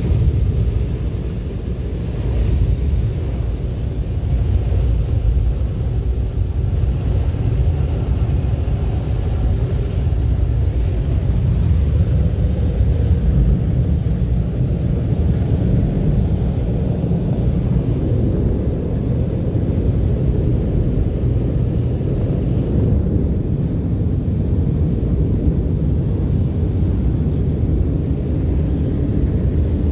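Automatic car wash machinery heard muffled from inside the car: a steady, loud low rumble.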